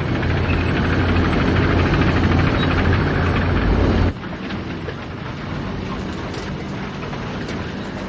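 Armoured tank's engine and tracks running, a loud steady rumble that drops suddenly about four seconds in to a quieter steady rumble with faint clicking.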